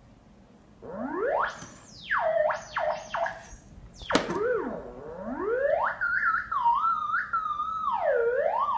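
Theremin-like electronic tones sliding up and down in pitch, wobbling in a fast warble over the second half, with one sharp knock about four seconds in.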